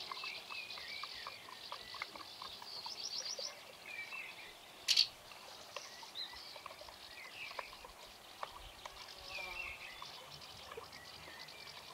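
Birds chirping, with small faint clinks as a spoon stirs a solution in a metal mug, and one sharp click about five seconds in. An insect buzzes briefly at the start.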